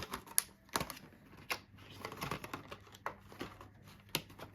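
A parcel's packaging being opened by hand: irregular clicks, snaps and short rustles as it is pulled and torn open.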